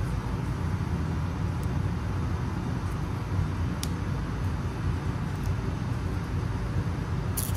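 Steady low background rumble, with a few faint clicks and taps from a small plastic camera being handled and a sharper click near the end.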